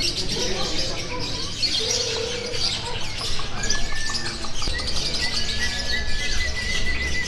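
Many caged lovebirds chattering and twittering at once in a dense, high-pitched trill, with a couple of long steady whistled notes from about halfway through.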